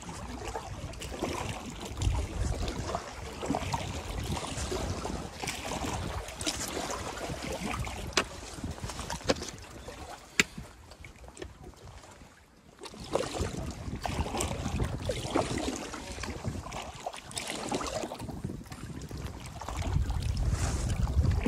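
Packraft paddle strokes splashing in a flowing river, with wind buffeting the microphone. There are a few sharp knocks around the middle, and a short lull a little past halfway.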